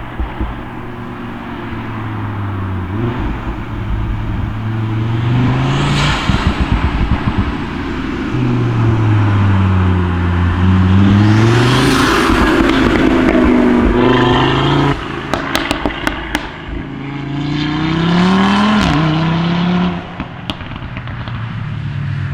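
Audi RS3 8V's 2.5 TFSI five-cylinder engine pulling hard in several rising runs, with rapid crackling pops and bangs from the exhaust each time the throttle closes: the overrun crackle from a remap and an aftermarket downpipe.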